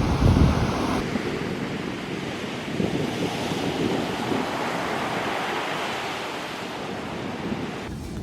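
Rough high-tide surf breaking and washing ashore in a steady rush, with wind buffeting the microphone for about the first second.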